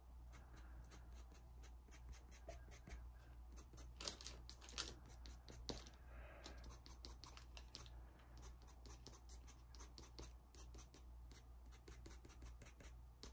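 Pastel pencil scratching on Pastelmat in many quick, short strokes, faint, over a steady low hum.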